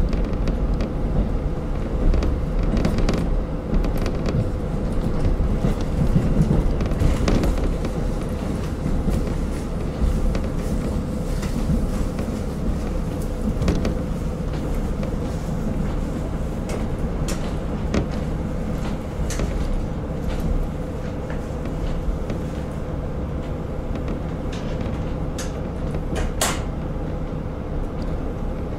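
Inside a KiHa 40 diesel railcar under way: a steady drone of the diesel engine and wheels rumbling on the rails, with a steady hum and scattered clicks and knocks.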